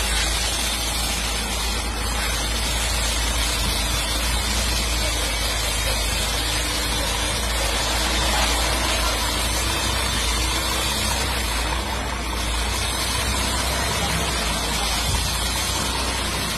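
Diesel engine of a DAF XF tractor unit running at low revs as the articulated truck creeps forward, a steady low rumble.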